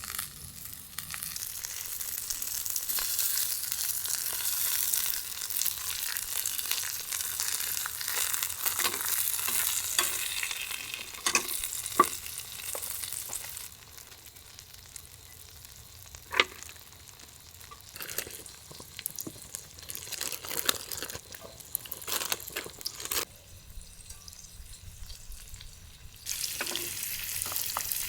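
Food sizzling and frying in a hot pan, with sharp clicks and knocks. The sizzle drops away about halfway through, leaving mostly the knocks, and comes back strongly near the end.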